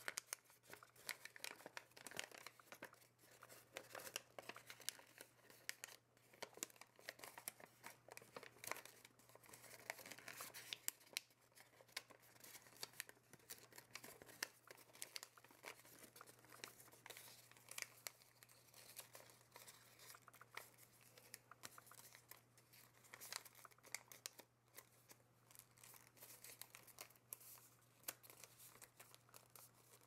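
Origami paper being folded and creased by hand: a faint, continuous stream of small crinkles and crackles as the sheet is handled and pressed flat. A steady low hum runs underneath.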